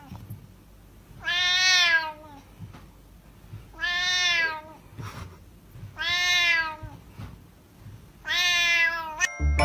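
A colorpoint cat gives four long, drawn-out meows, each about a second long and about two seconds apart, each rising and then falling in pitch.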